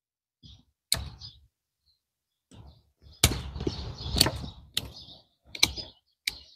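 Hand pruning shears snipping through the woody roots of a yellow apricot (mai vàng) tree: about six sharp snips, with rustling of the root ball in the middle. The dead root tips are being cut back to the red, live tissue so the roots can grow on.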